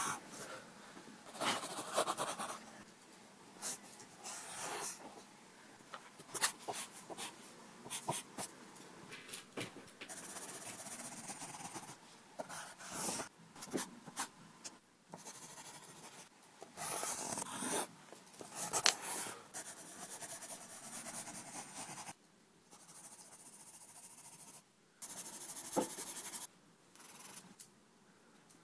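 Pencil scratching across paper in a run of irregular strokes, some short and some drawn out, broken by brief pauses and abrupt stops.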